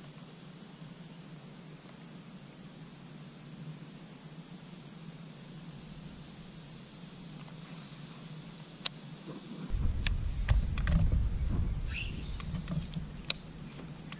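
Insects droning steadily at a high pitch, with a few sharp clicks. About two-thirds of the way through, a stretch of low rumbling and knocks begins and is the loudest sound.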